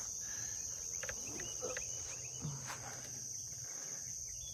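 Steady high-pitched insect chorus, with a few faint short chirps and a soft knock about a second or two in.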